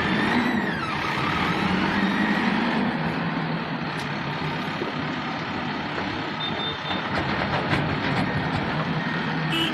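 Diesel engine of heavy machinery running steadily with a continuous drone.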